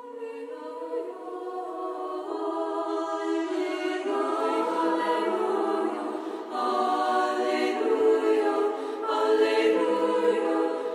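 Background choral music: slow, held choir chords that swell in and change about every two to three seconds.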